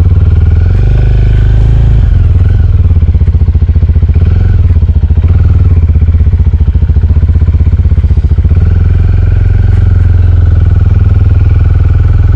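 A small Suzuki motorcycle's engine running steadily and loud, heard close up from the bike as it rides slowly over rough grass.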